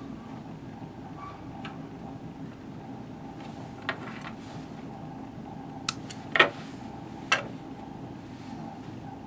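A few short, sharp clicks and small handling noises from fingers working thread on a graphite rod blank over a steady low hum; the clicks cluster in the middle, the loudest about two-thirds through.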